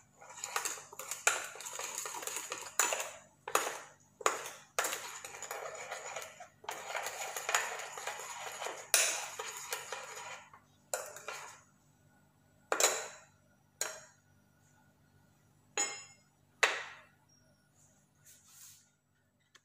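A spoon stirring thick chili dipping sauce in a small bowl, scraping and clinking against the bowl in long runs of stirring. Then come about half a dozen separate sharp taps, a second or two apart.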